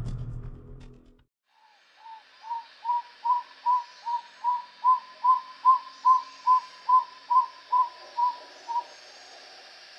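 Tody motmot singing: a series of about seventeen short, arched whistled notes at about two and a half a second, swelling in loudness toward the middle and then fading away, over a steady faint hiss. The tail of fading music is heard in the first second.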